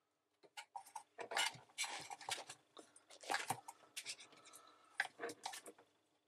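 Fingers and a thin wire working a rubber sump seal into the plastic sump of a Bosch slimline dishwasher: irregular scraping and rubbing with a few sharp clicks, as the seal is tucked into place.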